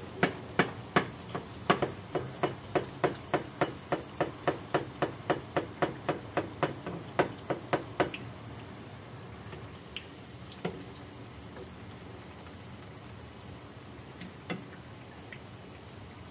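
A metal slotted skimmer knocking against a frying pan about three times a second while pastéis fry in hot oil. After about eight seconds the knocking stops, leaving the steady sizzle of the frying oil with a few odd clicks.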